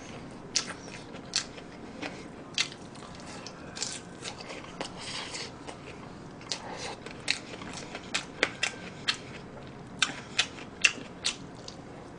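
Close-miked biting and chewing of a Mom's Touch Thigh Burger, with its crisp fried chicken thigh patty and heaps of lettuce. Sharp crunches and mouth clicks come at irregular intervals, a few every second.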